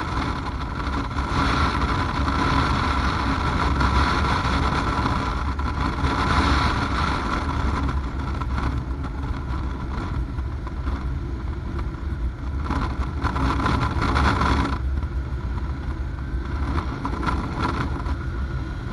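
Kawasaki KLR 650's single-cylinder engine running at a steady cruise on pavement, under a rushing wind noise. The sound thins out about fifteen seconds in.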